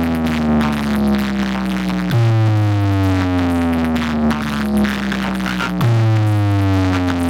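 Electronic DJ remix music with a heavy synthesizer bass note that slides down in pitch, restarting about every three and a half seconds.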